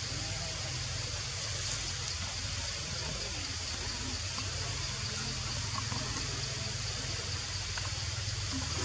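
Steady outdoor background noise: an even hiss with a low rumble underneath and no distinct events.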